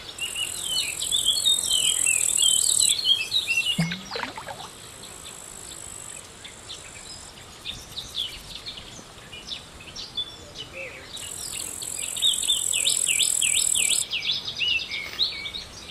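Insects droning in two long stretches, about three seconds near the start and again near the end, over a busy chorus of chirping birds.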